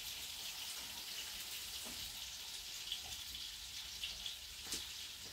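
Meat-and-cabbage cutlets frying in a pan: a steady sizzle with fine crackles, and a couple of faint ticks near the end.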